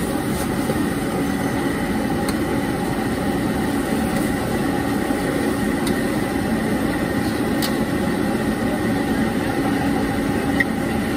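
Wok stove's gas burner and blower running steadily with a low hum, and a few light clicks of a metal ladle against the wok as stir-fried rice noodles are scooped out.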